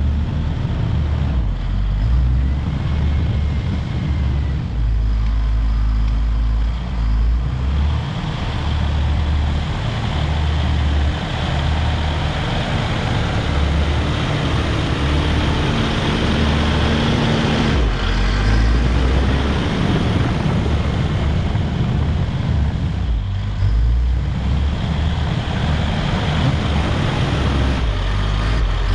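Caterpillar D5 wide-track bulldozer's diesel engine running under load while grading, a heavy low rumble that swells and eases as it works.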